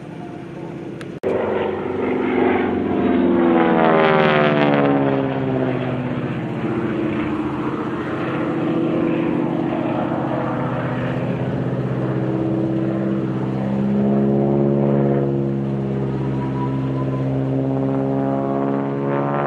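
Propeller airplane's piston engine and propeller droning steadily, the pitch rising and falling as it climbs, dives and passes by. The sound jumps abruptly louder about a second in.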